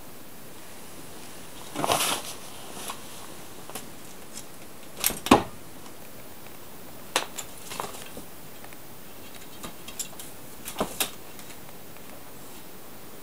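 Scattered light knocks, taps and scrapes of a cat pawing at and climbing a wooden practice sword (bokken) leaning against a wooden sliding door, over a steady faint hiss. The loudest knock comes about five seconds in, with a cluster near two seconds and a few more near the end.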